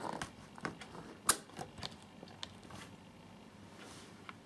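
Scattered small mechanical clicks and knocks from handling a WMS 5-pin euro cylinder lock, the loudest about a second in, easing off after the first couple of seconds.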